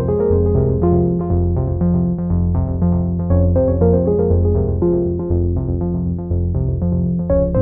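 Background music on a synthesizer keyboard: a low bass line that changes note every second or so under quick, short repeated notes.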